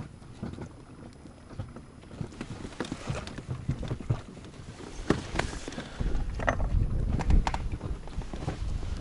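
Gear being handled aboard a small boat: irregular knocks and clatter that grow louder, with a low rumble from about six seconds in.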